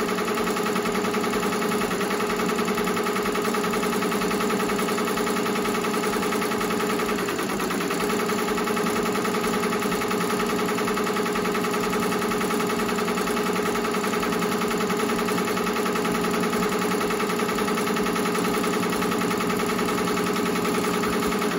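Ricoma 2002-8S two-head commercial embroidery machine stitching out a design at speed: a steady, rapid mechanical chatter of the needles over a constant hum. It dips slightly about seven and a half seconds in.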